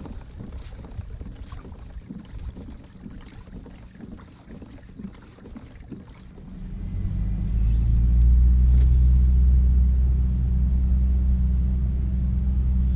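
Soft water and hull noise from a kayak moving along, with small irregular clicks. About six and a half seconds in, a much louder, steady low hum takes over and holds without change.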